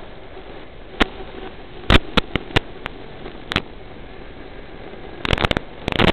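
Steady hiss from an analog FPV video link's receiver audio, broken by sharp crackles and pops as the radio signal breaks up: a single pop about a second in, a run of them around two to three and a half seconds, and a dense burst near the end.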